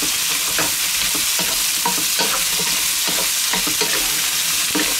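Diced zucchini sizzling in hot oil in a non-stick wok while being stir-fried quickly with a wooden spatula. There is a steady sizzle, with irregular soft knocks and scrapes of the spatula against the pan.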